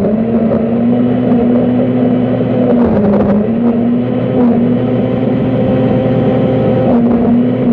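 Countertop blender motor running steadily at high speed, blending milk and crushed ice, with a loud, even hum.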